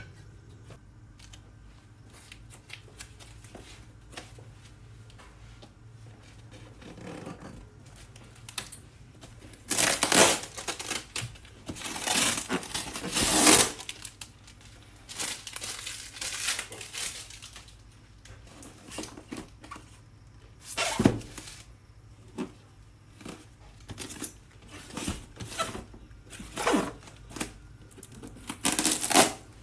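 Packing tape being cut and ripped off a polystyrene foam shipping box in a series of short tearing and rustling bursts, with quiet gaps between.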